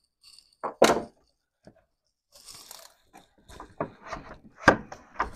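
Scattered clicks, knocks and crunching as a rubber coolant hose is worked onto the neck of a plastic coolant reservoir by gloved hands and hose pliers, with two louder knocks, one about a second in and one near the end.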